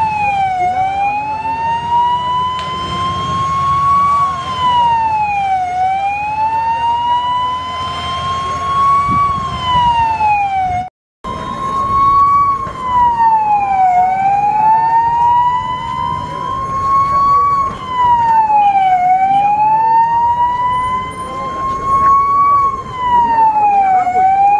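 Fire engine siren wailing, its pitch rising slowly and dropping back about every five seconds, with a brief dropout about eleven seconds in.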